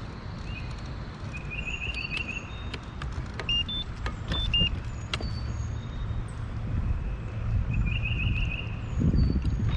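Electric trolling motor humming steadily as a jon boat creeps along, while birds chirp and give short trills overhead.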